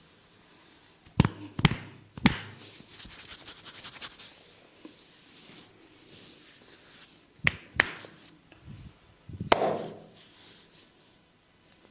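Hands working on a person's head in a massage: three sharp slaps or taps in quick succession, then a rapid run of lighter taps, two more strikes a few seconds later and one more near the end, with soft rubbing and scratching between them.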